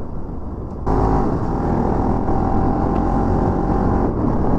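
Motorcycle engine running while riding, pulling harder about a second in and then holding a steady note.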